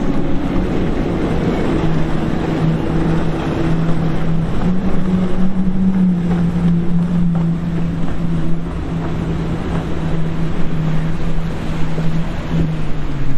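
Motorboat engine running with a steady hum that lifts slightly in pitch midway and drops near the end, heard through wind on the microphone and the wash of waves.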